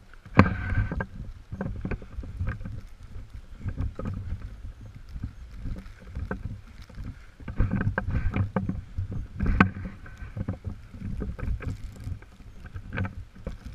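Blizzard wind buffeting the microphone: an uneven, gusting low rumble with scattered knocks and crackles.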